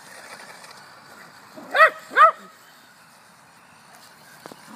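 Small poodle barking twice in quick succession, two short high-pitched yips, about two seconds in, aimed at a remote-control toy truck it is chasing.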